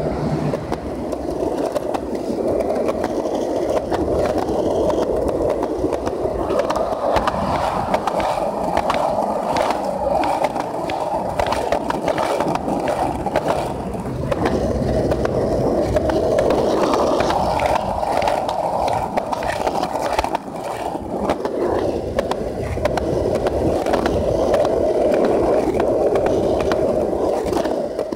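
Skateboard wheels rolling steadily over a concrete sidewalk, a continuous rumble with frequent short clacks as the wheels cross the joints between the slabs.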